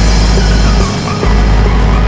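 Background music with a heavy bass line that comes in at the start and drops out briefly about a second in.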